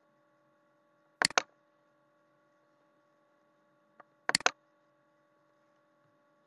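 Two computer mouse clicks about three seconds apart, each a quick press-and-release pair of sharp clicks, with a faint tick just before the second, over a faint steady electrical hum.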